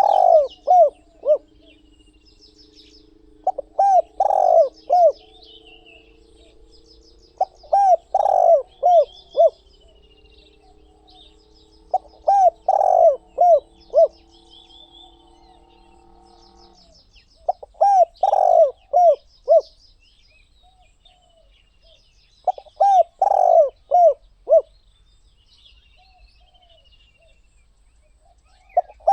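Spotted dove cooing: short phrases of several coos, repeated about every four to five seconds. Small birds chirp faintly and higher, and a steady low drone runs under the calls until it stops a little past halfway.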